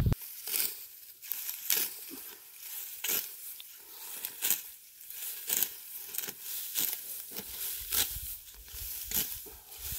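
A hand sickle cutting dry, ripe wheat stalks: a series of crisp, tearing cuts, roughly one a second, with the rustle of gathered straw between them.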